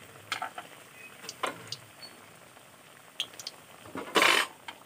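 Khurma dough pieces frying in oil in a steel kadhai, a low sizzle under scattered clicks and scrapes of a slotted metal spoon against the pan as they are turned. A louder rasp lasting about half a second comes near the end.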